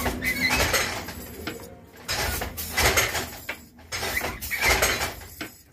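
Wooden handloom with a jacquard harness clattering as it is worked: three long bursts of clatter about two seconds apart, one for each weaving stroke.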